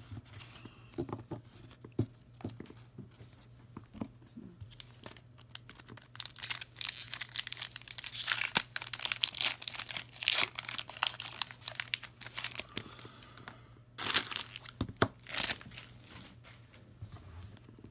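Pokémon booster pack's foil wrapper being torn open and crinkled, a crackling rustle that comes in a long spell through the middle and again briefly near the end, with lighter rustles and taps of card handling between.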